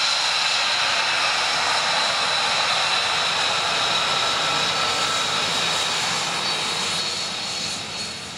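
F-35A Lightning II's Pratt & Whitney F135 turbofan as the jet rolls along the runway: a steady jet whine with a high whistling tone over a broad rush. It fades over the last couple of seconds as the jet moves away.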